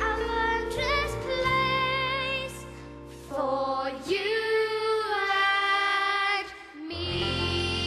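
Boys singing solo lines in turn over an instrumental backing track, a new young voice taking over about three seconds in and holding a long note before the backing swells again near the end.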